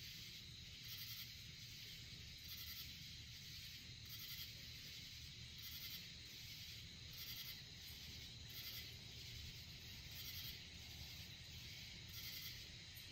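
Faint night insects chirping in a steady pulse about once a second, over a low outdoor rumble.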